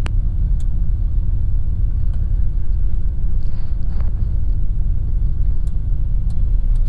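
Skyranger microlight's engine idling on the ground, heard from inside the cockpit as a steady low rumble.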